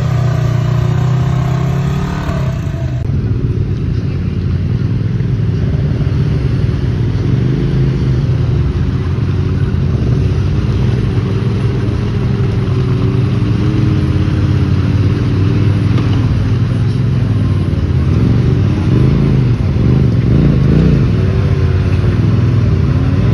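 Side-by-side UTV engines running and revving as the machines push through deep mud, the engine note rising and falling with the throttle. The sound changes abruptly about three seconds in, where one clip gives way to another.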